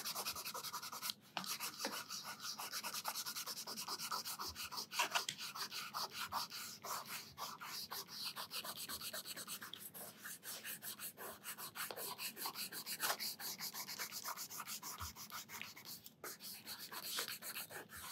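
A plastic eraser rubbing quickly back and forth over sketchbook paper in rapid short strokes, lifting the pencil under-drawing from beneath an ink drawing, with a couple of brief pauses.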